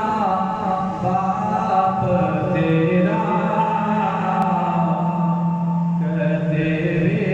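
A man chanting a devotional recitation unaccompanied into a microphone, drawing out long, slowly gliding melodic notes.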